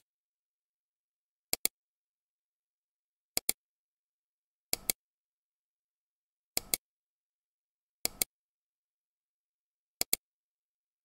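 Computer mouse clicking: six quick double clicks, each a press and a release, about every one and a half to two seconds.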